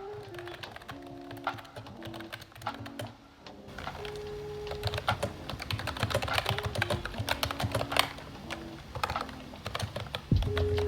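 Typing on a retro typewriter-style wireless keyboard with round keycaps: a few scattered key clicks at first, then rapid continuous keystrokes from about four seconds in. Background music plays throughout.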